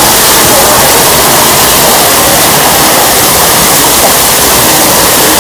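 Curtain of water pouring down from overhead close to the microphone: a loud, steady rush and splatter of falling water.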